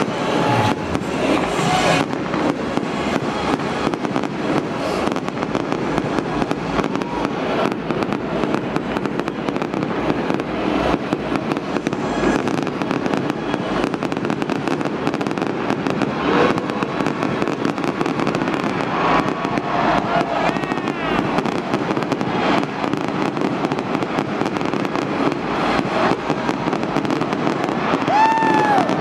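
Fireworks going off in a dense, continuous crackle of rapid pops, from spark fountains and bursting aerial shells.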